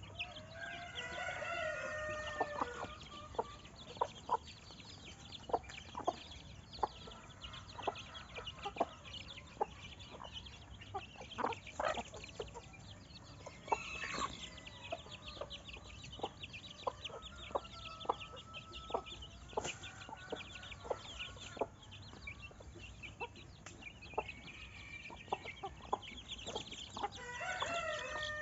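Chickens clucking, with many short sharp clucks and clicks throughout. A rooster crows just after the start and again near the end.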